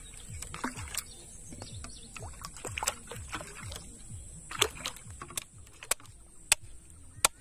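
Water lapping and sloshing at the surface around floating plastic bottles, with scattered small clicks. Near the end come a couple of sharp knocks as a wooden block strikes snail shells.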